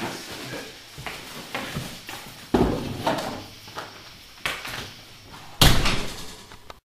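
A few footsteps and knocks on a hard floor, a heavy thump about two and a half seconds in, then a glass-paned interior door slamming shut about five and a half seconds in, the loudest sound.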